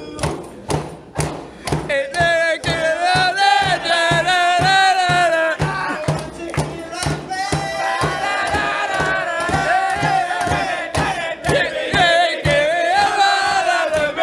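Young man singing a team initiation song, with a group of voices singing and shouting along from about two seconds in, over a steady beat of thumps about twice a second.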